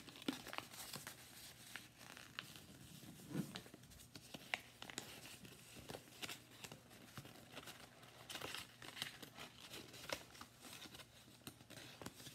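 Faint rustling and crinkling of a paper origami envelope as it is refolded and creased by hand, with many small crackles.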